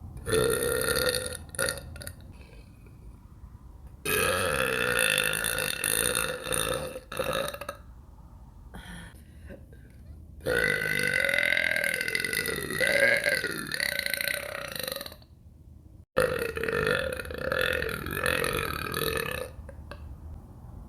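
A woman burping, four long, loud, drawn-out burps in a row with short pauses between them; the third lasts about four and a half seconds and wavers in pitch near its end.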